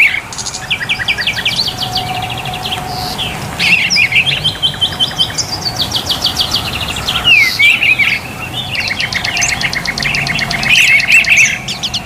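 Male oriental magpie-robin (kacer) in full song: a varied, continuous song of rapid trilled phrases and sharp chirps.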